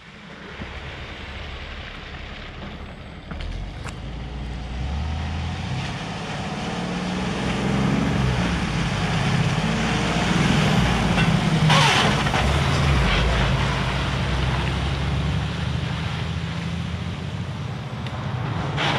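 A heavy road vehicle's engine pulling along, its pitch stepping up and down through several gear changes. It grows louder to a peak about two-thirds of the way through, where there is a short hiss.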